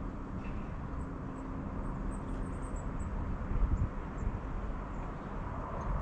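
Wind rumbling on the microphone in uneven gusts, with a string of faint, very high, thin calls from small birds between about one and three seconds in.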